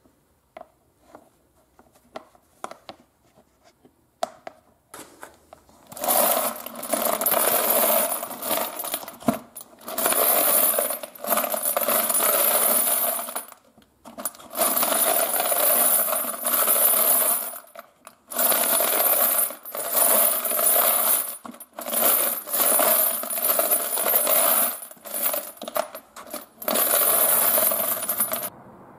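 Fired .308 brass cartridge cases rattling and jingling in a strainer as it is shaken to sift off the tumbling media. A few scattered clinks first, then about six seconds in loud rattling in repeated bursts with short pauses, stopping near the end.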